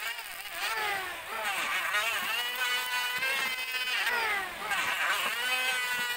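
Electric hand planer cutting along a teak board, its motor whine repeatedly dropping and rising in pitch, with steadier stretches between.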